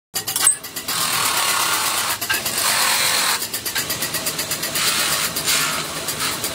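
Metal-spinning lathe running, with a hand spinning tool pressed against a turning copper disc: a steady, harsh scraping hiss over a low motor hum, breaking off briefly a few times as the tool is lifted.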